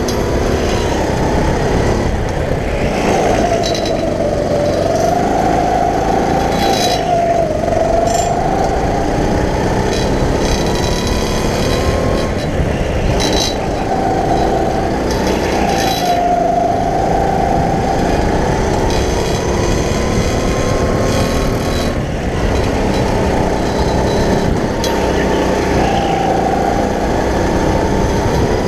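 Go-kart motor running at speed, its pitch rising and falling through the corners.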